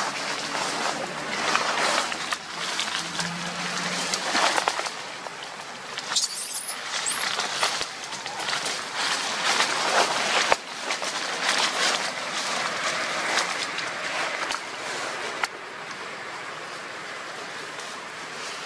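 Dry leaf litter rustling and crackling as macaques move and scuffle through it, a steady noisy rustle broken by many short, sharp crackles.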